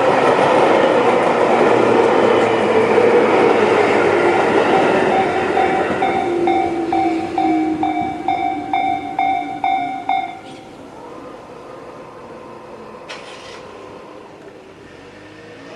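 Tobu 10030-series train passing the level crossing and running away, its noise fading over about six seconds. The crossing's electronic warning bell (Tobu 'C' tone) rings at about two strikes a second and stops abruptly about ten seconds in, followed by a click.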